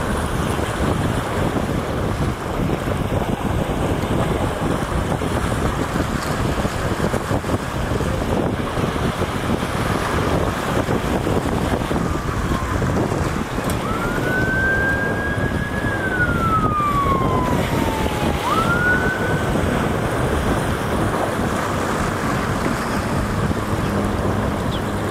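Wind rushing over the microphone with a boat's engine and water noise underneath. About halfway through, a siren wails once: it rises, slides slowly down, then sweeps up again.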